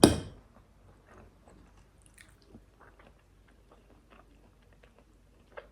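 A person chewing a mouthful of cauliflower close to the microphone: faint, scattered small clicks of chewing after a brief louder sound right at the start.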